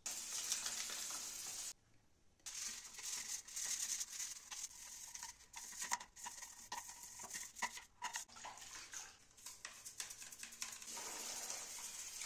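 A toothbrush scrubbing the plastic parts of a vacuum cleaner, the dust container and filter cage, in soapy water: irregular scratchy strokes with small plastic knocks. Near the end a tap runs steadily as the parts are rinsed.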